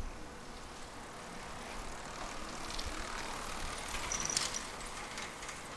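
A vehicle passing close by, its noise swelling to a peak about four seconds in and easing off, with a brief high squeak at the peak.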